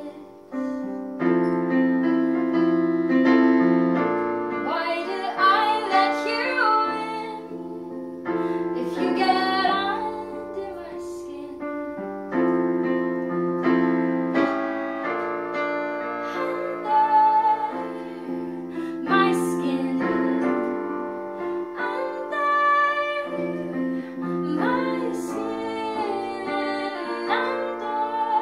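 A woman singing a song while accompanying herself on a digital keyboard piano, with sustained chords under sung phrases that come and go.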